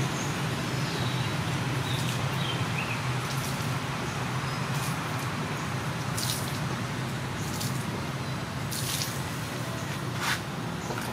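Kitten eating from a bowl of rice and fish, making irregular wet smacking and chewing clicks over a steady low background hum.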